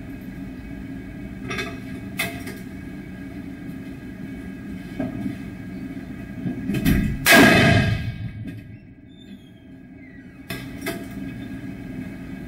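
A single loud gunshot about seven seconds in, from a ballistic test barrel firing at a Kevlar PASGT helmet, with reverberation fading over about a second. A steady hum and a few faint knocks lie under it.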